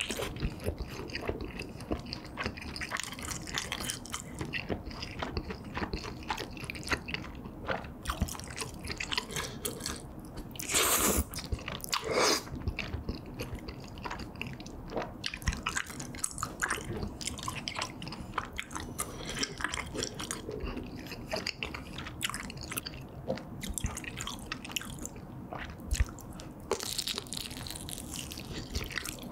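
Close-miked biting and chewing of a thick kielbasa sausage: a steady stream of small wet mouth clicks and squishes. There are two brief louder rushes of noise about 11 and 12 seconds in.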